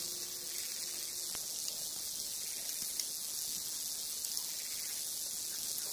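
A steady high hiss, with a few faint ticks from a small hand hoe working dry, stony soil.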